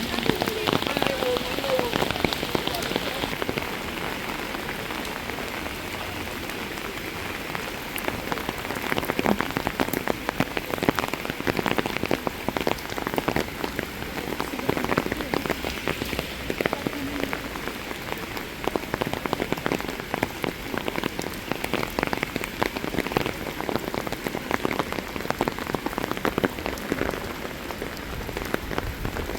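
Steady rain falling and pattering on hard surfaces, a dense crackle of drops.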